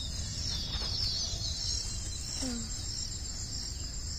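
Steady high-pitched chirring of insects, crickets or cicadas, over a low rumble, with one faint short falling call about halfway through.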